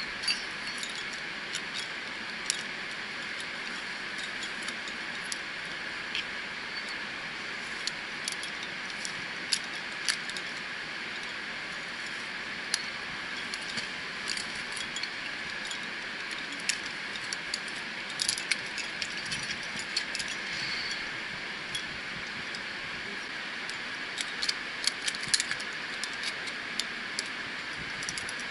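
Metal climbing gear clinking: carabiners and quickdraws jingling against each other on a climber's harness in scattered short clicks, with denser flurries twice, over a steady hiss.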